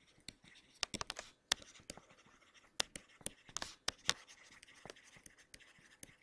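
Stylus writing on a tablet: irregular sharp taps, a few a second, with light scratching as words are handwritten.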